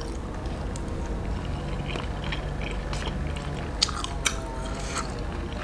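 A person chewing spicy fried tofu, with a few faint clicks as a wooden toothpick picks at the food in a plastic container.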